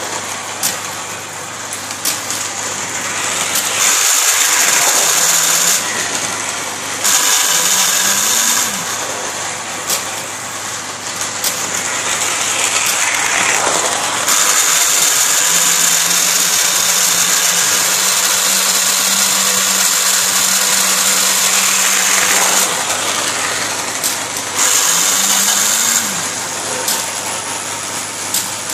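Lionel toy magnet crane's electric motor and gearing whirring in several runs of a few seconds each, starting and stopping as the cab swings round and the boom and magnet are worked.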